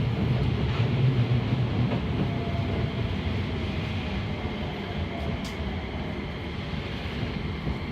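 Running noise of a Keio Liner commuter train heard from inside the car, slowing toward a station: a steady rumble that gradually fades, with a faint whine falling in pitch through the middle.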